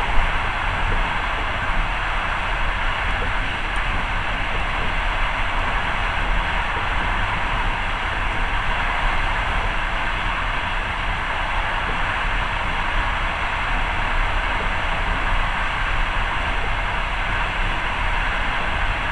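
Steady running noise of a moving passenger train, heard from inside the carriage, with one short knock just after the start.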